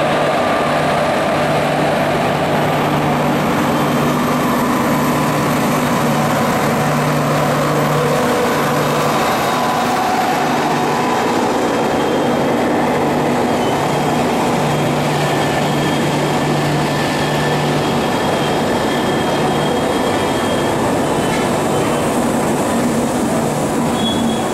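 LHB passenger coaches of an Indian Railways Rajdhani Express rolling past a platform: a steady rumble of wheels on rail, with thin, high squealing tones from the wheels above it.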